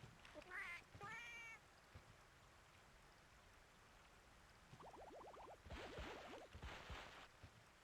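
Faint cat meowing: two short calls about a second in, then a quick run of rising calls a little past the middle, followed by some scratchy noise.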